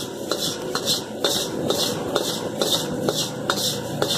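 Metal spatula and ladle scraping and tossing noodles in a wok, about two strokes a second with sharp metallic clicks, over a steady sizzle: char kuey teow being stir-fried.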